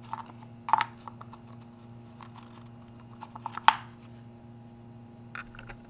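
Worn plastic lawn mower wheel clicking and knocking on its metal axle as it is wobbled by hand: a handful of sharp plastic clicks, the loudest about a second in and just before four seconds. The rattle is the slop of the wheel's worn bearing bore on the axle. A faint steady hum sits underneath.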